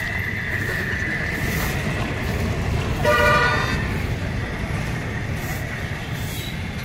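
A vehicle horn honks once, briefly, about three seconds in, over the steady low rumble of road traffic. A thin, steady high tone runs during the first couple of seconds.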